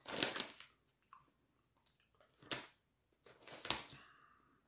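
A kettle-cooked potato chip being chewed: a few faint crunches with quiet gaps between them.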